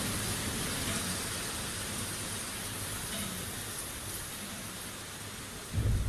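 Steady rain hissing, slowly fading, with the last of a low rumble dying away at the start and a sudden low rumble breaking in just before the end.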